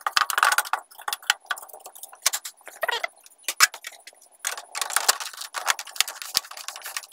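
Handling clatter as the plastic back cover is fitted back onto an opened LCD TV: a quick, irregular run of sharp clicks and knocks.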